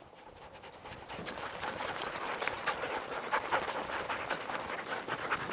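Many sled dogs barking and yelping together in a dense, overlapping chorus that fades in over the first second.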